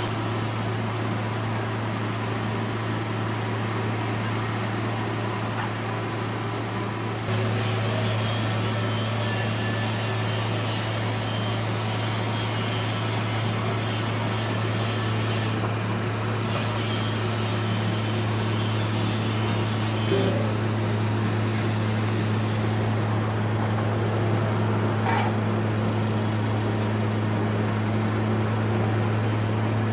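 Steady low machine hum, with a high whine that joins about seven seconds in, breaks off briefly around sixteen seconds and stops about twenty seconds in.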